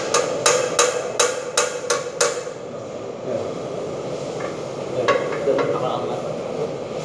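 Hand hammer striking at a wall-mounted box, a quick run of about seven sharp, ringing blows that stops a little over two seconds in, with two lighter knocks later on, over steady background noise.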